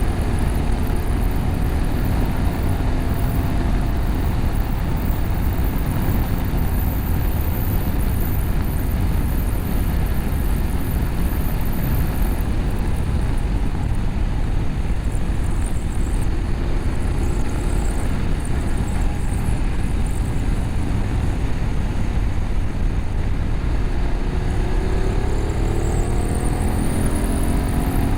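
BMW F850GS parallel-twin engine through an Akrapovic slip-on exhaust with a cat bypass, riding at speed under a steady rush of wind and road noise. The engine note eases off in the first few seconds and climbs steadily near the end as the bike accelerates.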